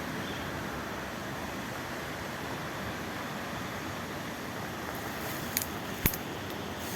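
Steady rushing of a waterfall, with two sharp clicks near the end, the second louder.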